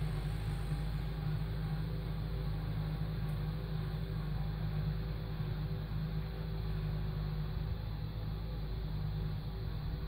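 Kubota M7060 tractor's diesel engine running steadily under load while pulling a tillage implement: a continuous low rumble with a faint steady hum above it.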